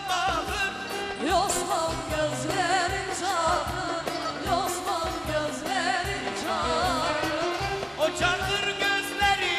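Turkish pop song with a singing voice in ornamented, wavering melodic lines over a steady percussion beat and band accompaniment.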